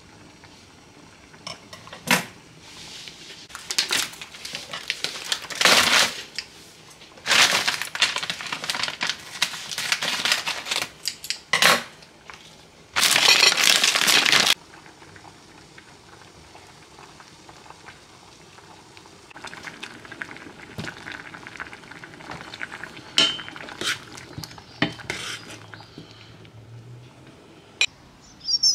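Kitchen handling sounds: scattered clinks and clatters of utensils, a metal pot and dishes. Around the middle comes a louder rustle, about a second and a half long, of a plastic sweets packet being handled.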